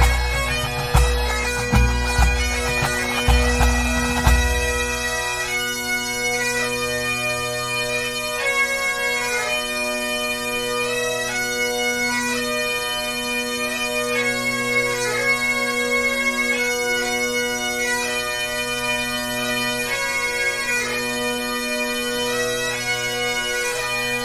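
Pipe band of Great Highland bagpipes playing a tune over steady drones, with bass drum and snare beats for the first four seconds or so; then the drums stop and the pipes carry on alone.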